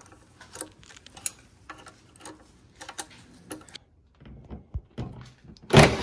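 Scattered light metallic clicks of hand tools working loose bolts on a Coyote V8 engine. Near the end a handheld power driver starts up abruptly and spins, backing out a bolt on the engine's oil pump.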